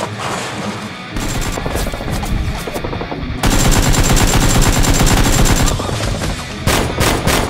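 Rapid automatic gunfire sound effects over background music. The longest, loudest burst runs from about three and a half to nearly six seconds in, with a few heavier single shots near the end.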